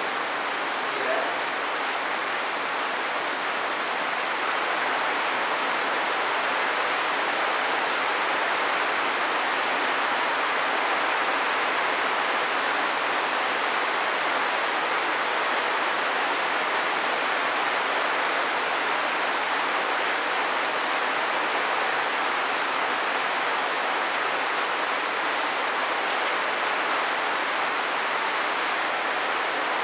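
Steady rain falling, a continuous even hiss that holds the same level throughout.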